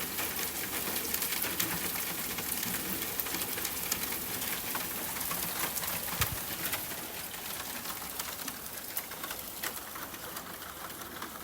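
Soft rain falling steadily, with close drops pattering and ticking. A single dull low thump comes about six seconds in, and the rain eases slightly toward the end.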